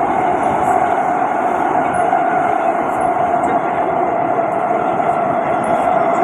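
SMRT North-South Line C151B (Kawasaki-Sifang) metro train running between stations, heard from inside the car: a steady rolling rumble of wheels and running gear with a constant hum through it.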